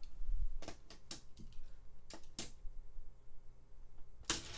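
Light plastic clicks and taps, about seven spread over the first two and a half seconds, as die-cast toy cars are set into a plastic track's starting gate. Near the end comes one sharper snap from the gate lever as it is released.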